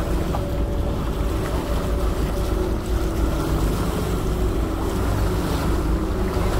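Catamaran under way: a steady rush of water along the bow with wind buffeting the microphone, under a faint steady hum.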